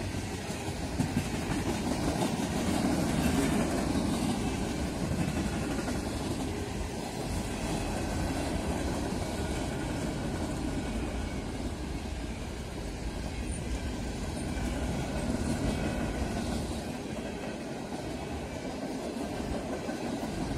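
Freight train cars, gondolas and boxcars, rolling past at speed: a steady rumble of steel wheels on the rails.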